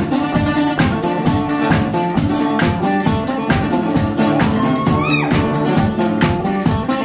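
Live blues band playing an instrumental passage between sung lines: electric guitar over a steady drum beat, about one beat a second, with a note that slides upward about five seconds in.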